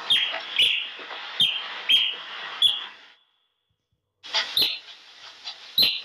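Otter giving repeated short, high-pitched chirps, each dropping slightly in pitch, roughly one every half second to second, with clicks between them. The calls stop for about a second a little past halfway, then start again.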